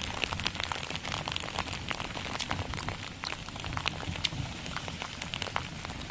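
Rain falling, with many separate drops ticking close by over a steady low rumble.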